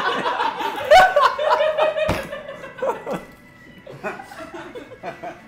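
A group of people laughing loudly, fading to quieter chatter after about three seconds, with a sharp knock about two seconds in.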